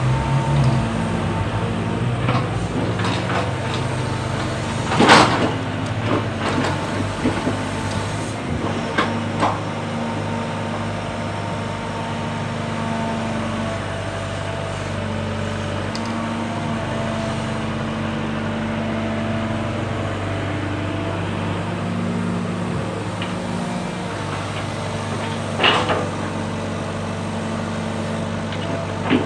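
Sumitomo excavator's diesel engine running steadily while working, its note stepping up and down as it is loaded. Sharp knocks cut through it, a loud one about five seconds in and another near the end.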